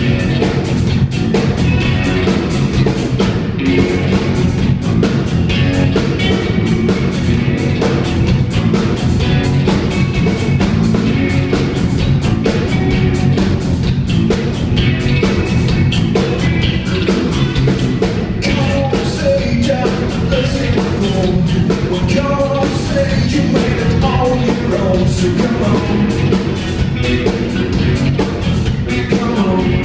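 A rock band playing live: drum kit keeping a steady beat under electric guitars, keyboard and violin.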